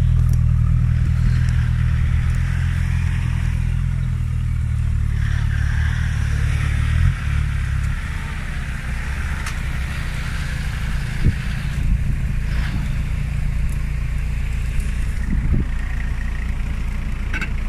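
4x4 off-road vehicle engine running under load as it climbs a slope: a steady low drone that drops off a little about seven seconds in.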